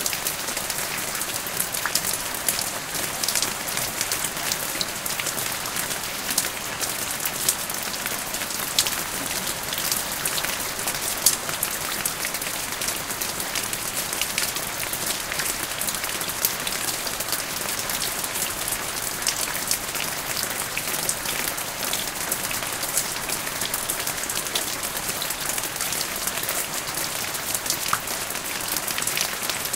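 Rain falling steadily: an even hiss dotted with many small, irregular drop ticks.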